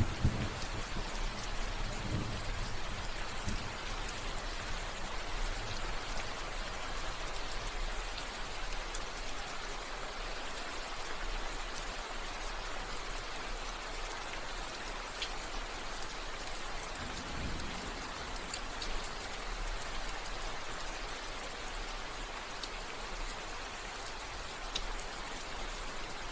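Steady rain falling in an even hiss, with a low rumble dying away in the first few seconds and another brief low rumble about two-thirds of the way through.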